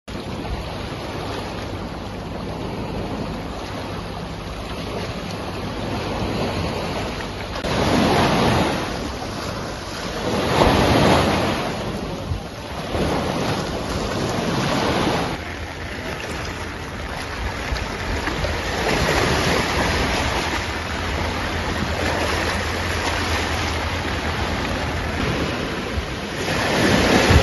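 Choppy sea surf breaking and washing up on the beach in a strong wind, swelling and falling back every few seconds. Wind buffets the microphone with a steady low rumble underneath.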